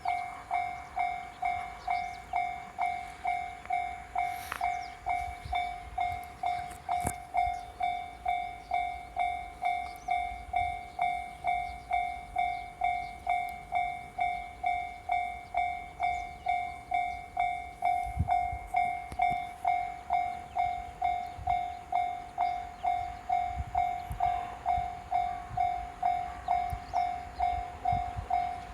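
Japanese level crossing warning bell ringing: a single clanging tone repeated evenly, about two strikes a second, with a few low rumbles in the second half.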